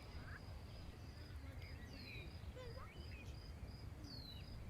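Faint outdoor birdsong: a high note pulses a few times a second, a falling whistle repeats about every two seconds, and short chirps are scattered through, over a low wind rumble.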